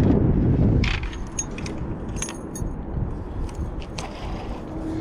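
Small metal clicks and jingles of fishing tackle being handled while changing lures, with low wind rumble on the microphone, loudest in the first second and again near the end.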